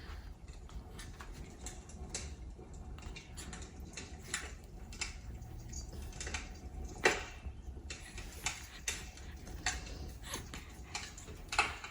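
Scattered light clicks and taps of ornaments and tree branches being handled while a Christmas tree is decorated, over a low room hum; one tap about seven seconds in is a little louder.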